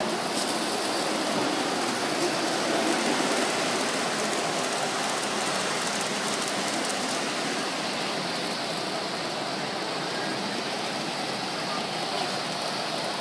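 O gauge model freight trains rolling past on the layout's track, a steady rattling rumble of metal wheels on metal rails.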